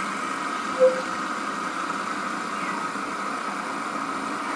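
Two fidget spinners spinning on a tabletop, each held down by its centre cap, giving a steady whir from their ball bearings. A short blip about a second in.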